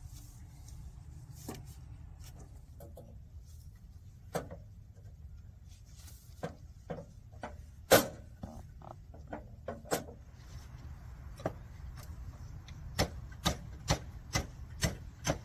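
Scattered clicks and knocks of PVC electrical conduit and its fittings being handled and fitted, with one loud knock about halfway through. Near the end the clicks come evenly, about two a second, over a steady low rumble.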